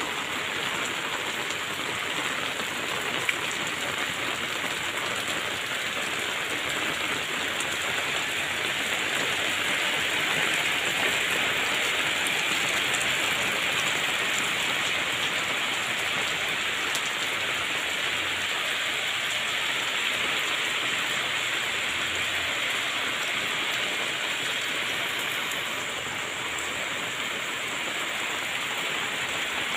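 Steady downpour of rain, an even hiss that swells a little about ten seconds in.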